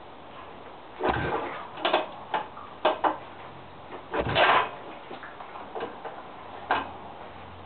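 Yamaha SR400 single-cylinder engine being kick-started from cold: irregular clanks and thumps from the kick lever and the engine turning over, two of them heavier, without the engine catching and running.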